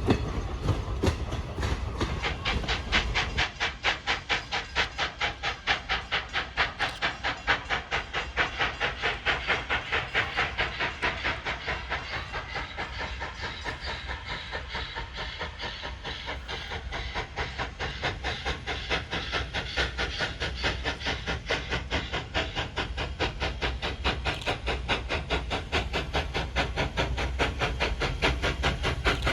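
Steam locomotive No. 89, a 2-6-0 Mogul, working under steam. Its exhaust chuffs come quickly and evenly, several a second, over a steady hiss of steam.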